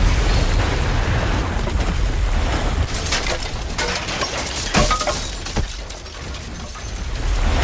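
Crash sound effects: a deep rumble with sharp clattering and breaking glass about three to five and a half seconds in. The rumble dips about six seconds in, then swells again near the end.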